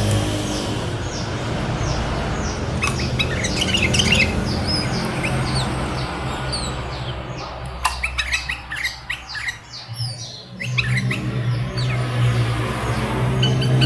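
Caged kutilang (sooty-headed bulbuls) chirping and calling in many short, quick notes, over a steady low hum.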